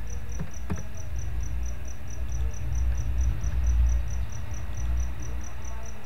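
Steady high-pitched chirping, like a cricket, repeating about six times a second over a low hum, with a couple of clicks in the first second.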